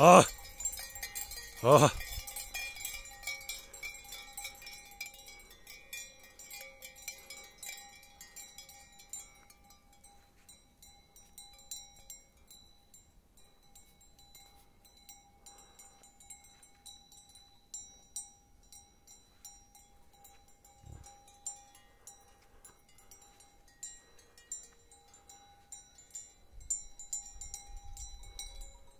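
Bells on a herd of yaks, ringing and jangling without a break. Two loud short sounds come in the first two seconds.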